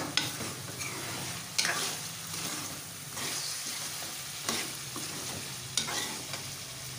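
A metal spoon stirs and scrapes meat and onions frying in oil in a metal pot, over a steady sizzle, with a few sharp knocks of the spoon against the pot. The meat's water has cooked off and the oil has separated, the fried-down bhuna stage.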